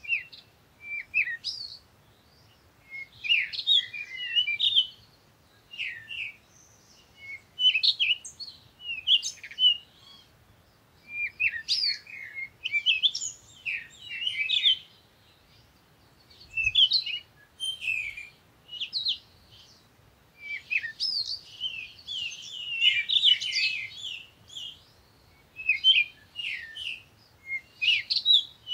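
Small birds chirping and twittering in quick high bursts every second or two, with short pauses between.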